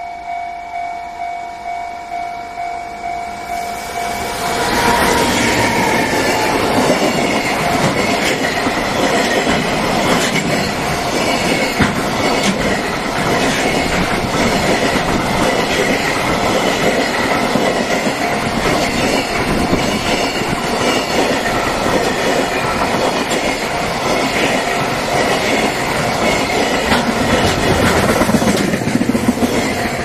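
Japanese level-crossing bell dinging about twice a second. From about four seconds in, a JR Freight container train runs close past: loud wheel-on-rail noise with rapid, regular clacking over the rail joints from the long string of container wagons. Near the end the train noise drops and the crossing bell is heard again.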